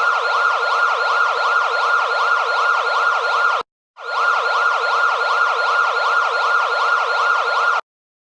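Electronic siren-style emergency alert alarm tone warbling rapidly up and down in pitch, several sweeps a second. It sounds in two bursts of about four seconds, with a brief silent break between them, and cuts off sharply near the end.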